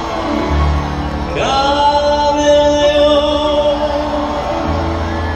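Male singer performing a Korean trot song live over amplified backing music. About a second in his voice slides up into a long held note that lasts roughly three seconds.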